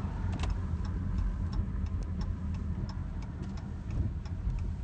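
Car driving, heard from inside the cabin as a steady low rumble, with a regular ticking about three times a second on top.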